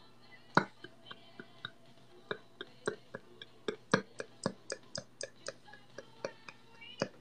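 A faint, irregular series of short, sharp clicks, about three to four a second, beginning about half a second in.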